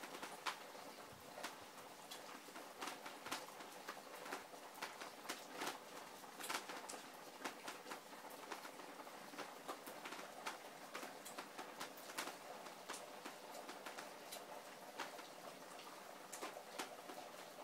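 Heavy rain falling: a steady hiss with many irregular, sharp drop hits spattering through it.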